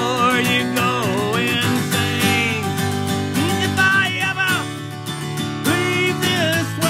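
Acoustic guitar strummed in a steady rhythm while a man sings a melody over it.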